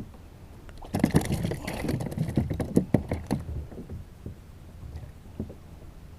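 A dense flurry of knocks and rattles on a kayak, starting about a second in and lasting some two and a half seconds, over a steady low rumble.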